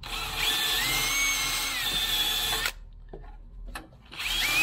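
Cordless drill spinning a small wire wheel against a battery cable's ring terminal, scrubbing corrosion off it. It runs for about two and a half seconds with a whining motor note that shifts a little in pitch, stops, then starts again near the end.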